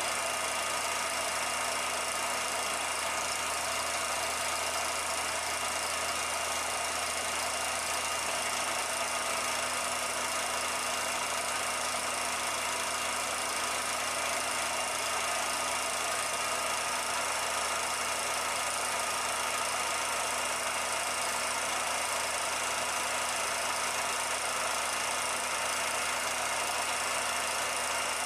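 Steady mechanical whir of a 16mm film projector running, with a constant hum and a few fixed tones that never change.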